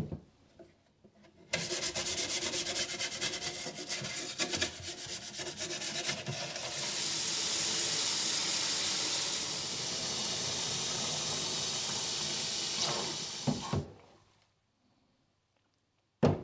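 Kitchen tap running hard into a stainless steel sink to fill it with water. It starts about a second and a half in as a rapid splashing patter, settles into a steady hiss, and is shut off about fourteen seconds in.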